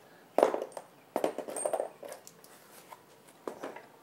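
Clunks and clatter of a mobility scooter's metal rear transaxle frame being handled and shifted: a sharp knock about half a second in, a run of rattling knocks a second later, then a few faint taps.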